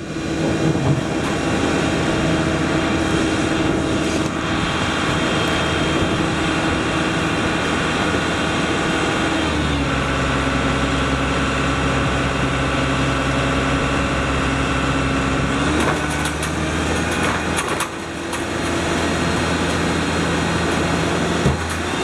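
Ice-drilling rig's engine running steadily while its auger grinds down through sea ice. The engine note drops lower about ten seconds in and rises again about sixteen seconds in.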